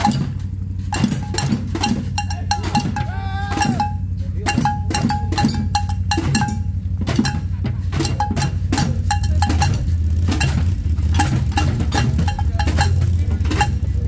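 Metal cooking pots and pans beaten with sticks as a makeshift tin band: an irregular clanging of many quick strikes, with a few voices. A steady low rumble underneath grows louder about two-thirds of the way through.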